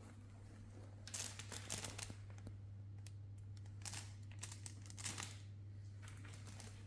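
Rustling and crinkling in a few short bursts over a steady low hum.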